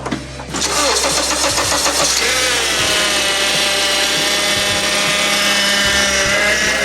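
Honda Accord engine starting about half a second in and running, with the new power steering pump whining, a steady high whine with several tones from about two seconds in. The owner takes the whine for the pump starving for fluid.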